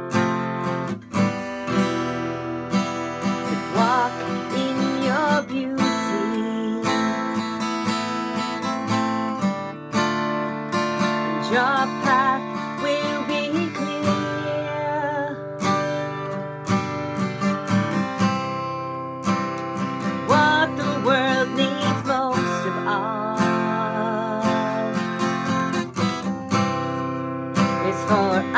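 A woman singing a gentle song while strumming chords on a steel-string acoustic guitar.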